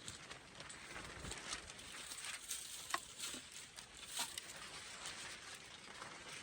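Faint scratching and rustling with a few sharp clicks and light knocks, from hand work on a chainsaw.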